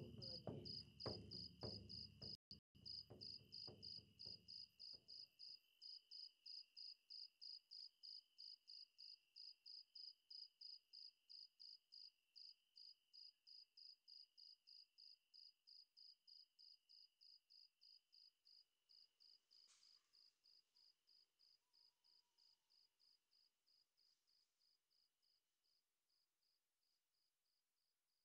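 High-pitched insect chirping, like a cricket, about two and a half chirps a second over a faint steady high hum, slowly fading out to silence. Lower pitched sound, music or a voice, is heard under it for the first five seconds or so, then stops.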